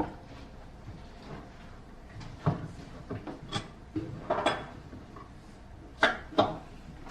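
A series of short, light knocks and clicks from objects being handled and set down, about six in all, the loudest two near the end.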